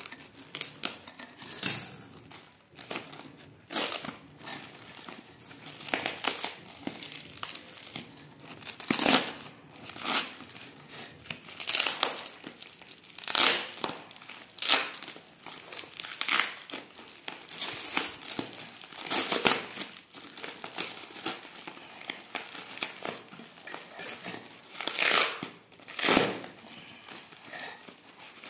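Plastic packing wrap crinkling and rustling in short bursts every second or two as a parcel is pulled open by hand.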